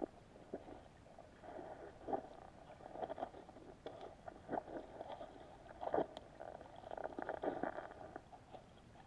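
Muffled, irregular knocks and taps picked up through an action camera's waterproof housing held underwater, with small clusters of them every second or so and the loudest near the middle. The sealed case lets almost no other sound through.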